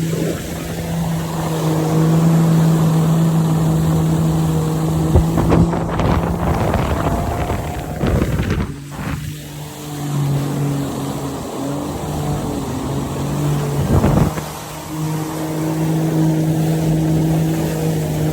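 Watercraft engine running at a steady pitch. It eases off briefly about halfway through and again near the end, with short rushes of noise at those points.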